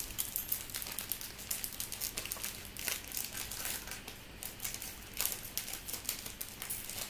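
Shiny foil trading-card pack wrapper crinkling in quick, irregular crackles as it is torn and peeled open by hand.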